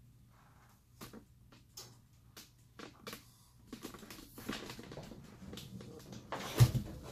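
Rabbit's paws scratching and shuffling on a cardboard floor: scattered light scrapes at first, turning into steadier rustling about halfway through. A single loud thump comes near the end.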